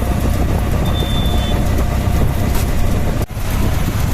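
Riding in an auto-rickshaw: the engine's low, steady rumble with road and wind noise around the passenger seat, briefly dropping out about three seconds in.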